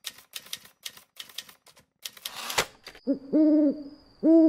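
Typewriter keystroke sound effects clacking out letters in a quick run, then a rising swish ending in a sharp snap. Two owl hoots follow, the second near the end.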